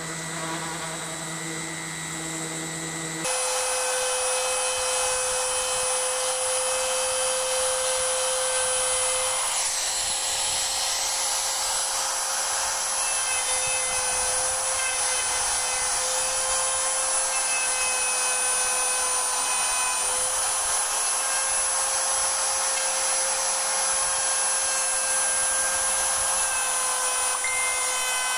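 A random-orbital sander running briefly on wood. About three seconds in, a trim router takes over, running steadily at high speed with a high-pitched whine as its bit cuts along the edge of a wooden block.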